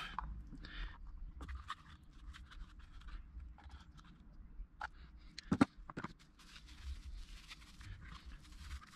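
Light scrapes and clicks of water pump pliers gripping and tightening the plastic cable gland on a weatherproof socket box, with one sharper click about five and a half seconds in.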